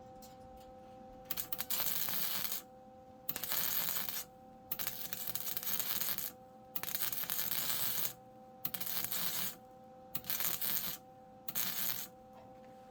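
MIG welder laying a series of tack and stitch welds on car body sheet metal: about seven crackling bursts, each from half a second to a second and a half long, with short pauses between them.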